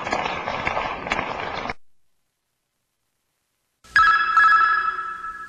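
Crowd applause, a dense patter of clapping, cuts off abruptly about two seconds in. After a short silence, a loud electronic chime strikes near the end, its several steady ringing tones slowly fading.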